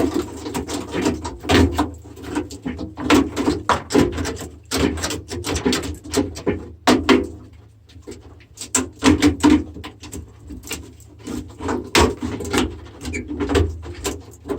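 Irregular knocks, clicks and rattles of hand tools working on the metal parts of a corroded microwave, with a steady low hum underneath.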